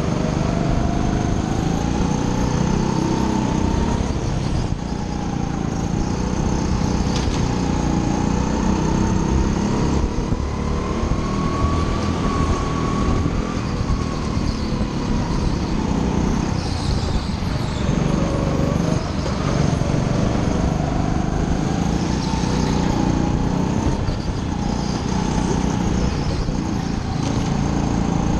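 Go-kart motor whining as it is driven at racing speed, its pitch slowly rising and falling as the kart speeds up and slows through the corners, over a heavy low rumble of wind and vibration on the helmet-mounted camera.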